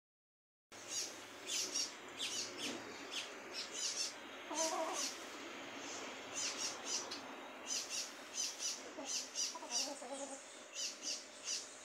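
Short high bird chirps repeating a few times a second, with a domestic hen giving two lower clucking calls, about five seconds in and again near ten seconds.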